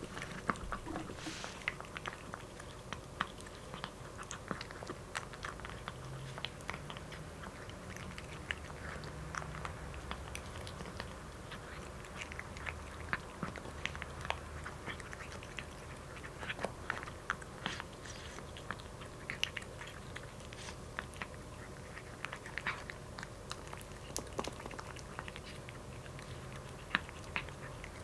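A cat crunching dry kibble, a quick, irregular run of small crunches as it chews.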